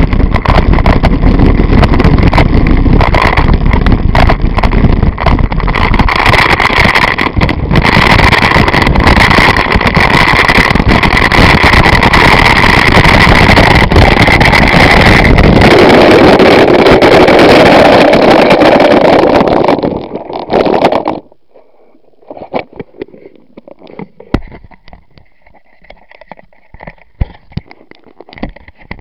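Off-road skateboard wheels rolling fast over gravel, picked up close to the board: a loud, constant rumble and rattle mixed with wind on the microphone. It cuts off abruptly about two-thirds of the way through as the board stops, leaving only faint scattered clicks.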